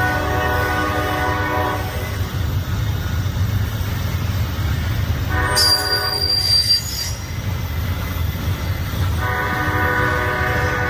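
Diesel locomotive horn sounding three blasts, a shorter one in the middle, over the steady low rumble of a passing train. A brief high squeal rings out during the middle blast.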